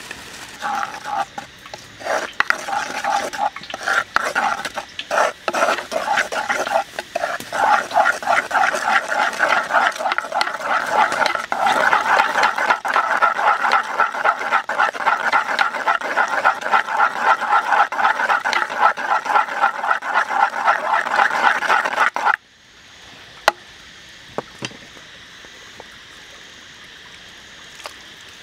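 A utensil beating egg and flour in a dark pot: rapid, regular scraping and tapping against the pot, several strokes a second, which stops abruptly about three quarters of the way through, leaving a quiet background with a couple of single clicks.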